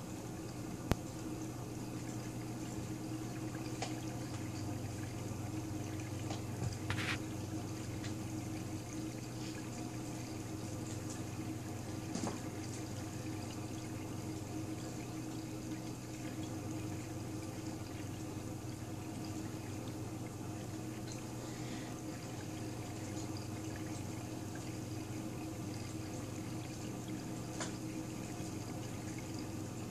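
Reef aquarium equipment running: a steady trickle and splash of circulating water over a constant low pump hum, with a few faint clicks.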